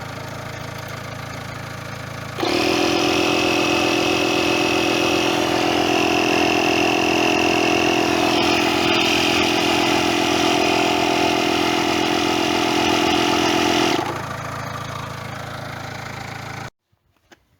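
An engine running at a steady speed. It steps up to a louder, steady higher note about two seconds in, drops back about fourteen seconds in, then cuts off abruptly near the end.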